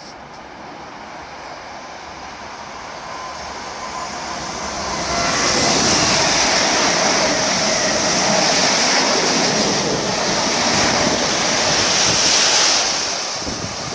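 Passenger train of coaches running through the station at speed: a rushing noise of wheels on rail that builds as it approaches, stays loud for several seconds as the coaches sweep past with a strong hiss, then eases off near the end.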